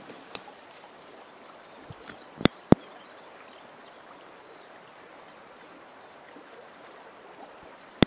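The upper Volga's fast current running over a riffle: a steady rushing of water. A light click just after the start and two sharp knocks in quick succession about two and a half seconds in stand out above it. Faint bird chirps come in the middle.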